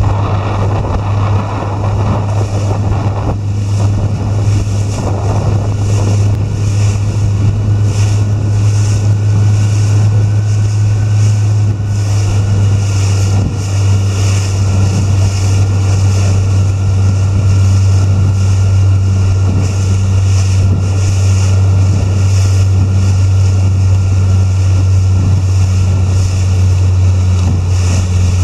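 Outboard motor of an inflatable chase boat running at steady speed, a constant low drone, with wind buffeting the microphone in gusts and water rushing past the hull.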